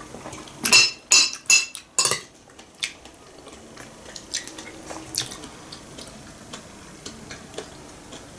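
Metal spoon clinking and scraping in a glass bowl while scooping fruit salad: four loud ringing clinks in the first two seconds, then quieter taps and scrapes.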